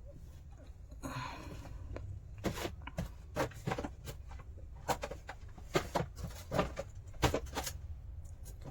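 Irregular small clicks and taps of hand work on an electronics bench, handling an amplifier board, wires and tools, over a steady low hum.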